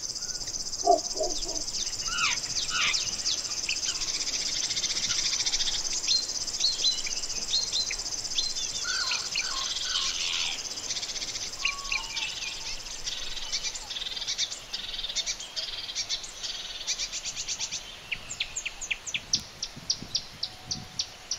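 Several birds singing and calling over a continuous high, fast-pulsing trill. In the last few seconds the trill breaks up into separate quick repeated chirps.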